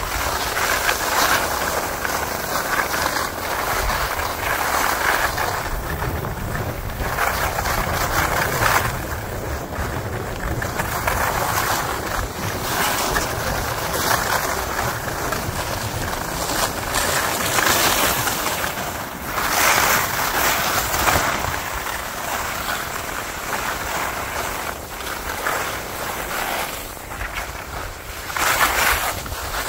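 Wind buffeting the microphone and skis hissing and scraping over packed snow while skiing downhill, a continuous rushing noise that swells and eases every few seconds with the turns.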